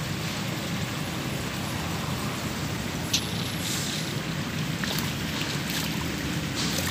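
Steady low background rumble, with a single short click about three seconds in.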